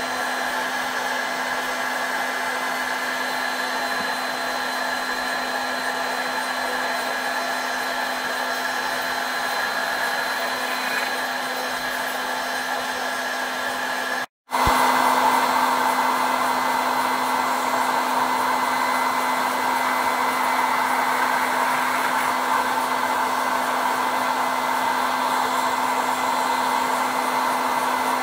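Small CNC mill's spindle motor running with a steady whine while its end mill cuts a sprocket. The sound cuts off abruptly about halfway through and returns a little louder, with more cutting noise.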